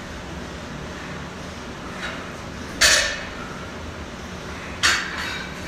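Two sharp metallic clanks of a loaded barbell and its plates, about two seconds apart, the first about three seconds in and the second near the end, over a steady gym hum.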